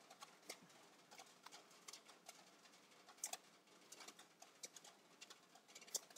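Near silence with faint scattered clicks while presentation slides are paged back, the strongest a quick pair about three seconds in and another just before the end.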